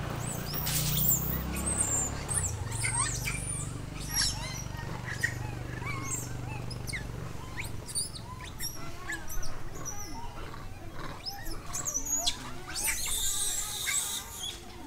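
Many short, high chirping animal calls, overlapping and scattered throughout, over a low steady hum that fades out about halfway through.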